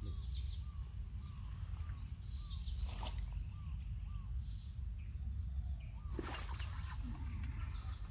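A bird calling a short, arched note over and over, about twice a second, with higher chirps now and then, over a steady high insect drone and a low wind rumble on the microphone. Two knocks break in, about three seconds in and again after six seconds.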